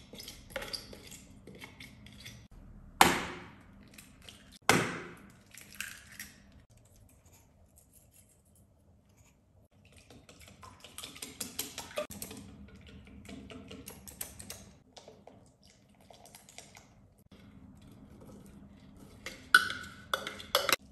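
Kitchen utensil sounds: a spoon scraping in a plastic food-processor bowl, two sharp ringing knocks about three and five seconds in, then a wire whisk clicking against a glass mixing bowl. Loud clinks come near the end as chopped broccoli is tipped from the processor bowl into the glass bowl.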